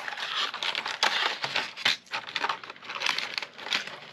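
Crinkling and crackling of a fishing lure's retail packaging as the lure is worked out of its box, with many small clicks.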